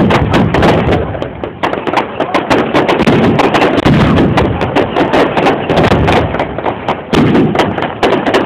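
Aerial fireworks bursting: a dense, unbroken run of sharp bangs and crackles, many overlapping.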